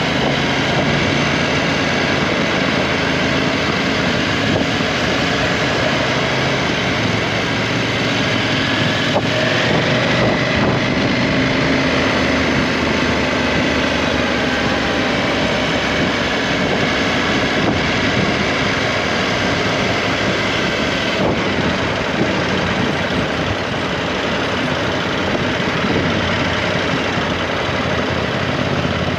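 KTM 790 Adventure's parallel-twin engine running at speed with steady wind and road noise, the engine note drifting gently up and down with the revs.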